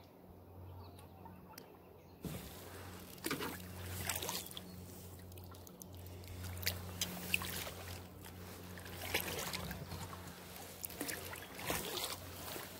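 Kayak paddle strokes on a calm lake: the blades dipping in, with water splashing and dripping off the paddle, starting about two seconds in and going on irregularly.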